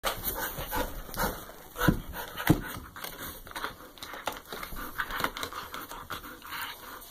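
A black Labrador gnawing a hard chew bone: irregular clicks and knocks of teeth on the bone, with the dog panting.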